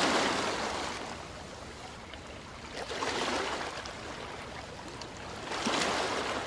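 Waves washing in, a rushing noise that swells and ebbs about every three seconds.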